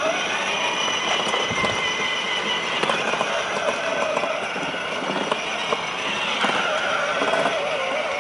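Children's battery ride-on toy Mercedes with two 6 V motors driving: the electric motors and gears whine steadily under a rattling rumble of its hard plastic wheels rolling over brick paving.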